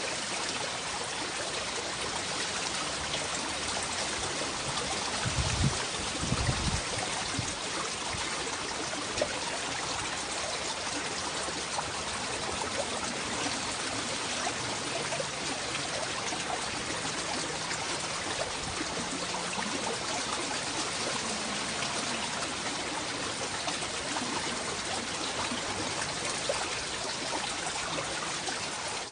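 Steady running water of a small stream, trickling evenly, with a couple of brief low rumbles about six seconds in.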